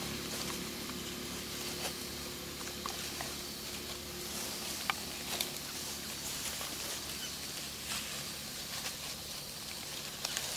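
Dry leaf litter rustling and crackling as macaques, a mother and her newborn baby, move about in it, with scattered sharp crackles, over a faint steady low hum.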